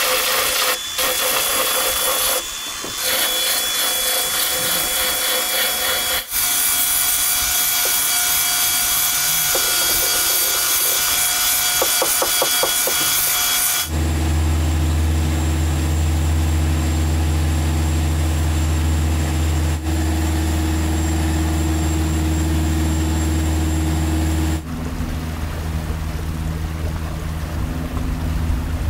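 Handheld power grinder running against carbon-fibre composite, a steady high whine over coarse grinding noise. About halfway through it gives way to a steady low machinery hum aboard the boat, which changes pitch near the end.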